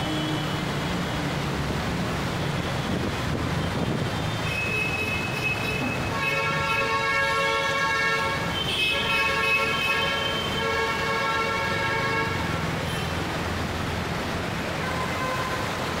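Steady rush of heavy rain, floodwater and wading traffic. Vehicle horns sound from about four seconds in, one held for about six seconds with a short break partway through.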